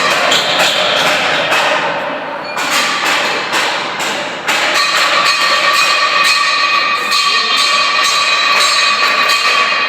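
Metalworking sounds: rapid, irregular hammer knocks on metal, joined about four and a half seconds in by a steady high machine whine.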